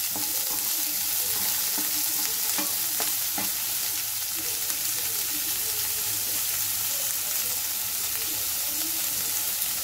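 Chopped onions sizzling in hot oil in a wok as they are stirred with a wooden spatula. The sizzle holds steady, with a few light taps and scrapes of the spatula in the first few seconds.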